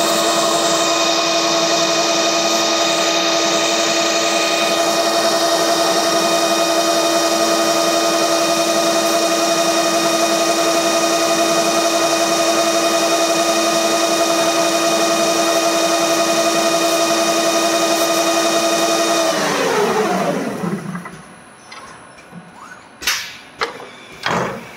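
Coreless stretch-film rewinder running at speed: a steady machine whine of several tones over a hiss. About 19 seconds in it winds down, the whine falling in pitch and fading as the roll finishes, then a few sharp mechanical clacks near the end.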